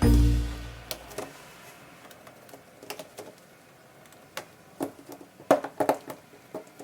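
A last note of background music dies away in the first second, then scattered sharp clicks and light knocks of plastic toy train track pieces being handled, coming thicker near the end.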